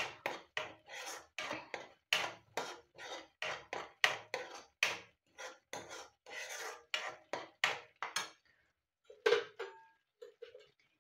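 A spatula scraping and stirring thick masala paste in a non-stick kadai, with quick strokes about three a second that stop about eight seconds in. A few light knocks and clinks follow.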